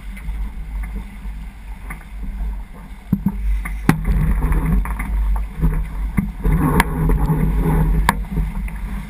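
Wind and water rushing past a J80 sailboat under way, heard from a camera on its deck, getting louder about three seconds in. Several sharp clicks and knocks of deck hardware break through as the crew work the lines.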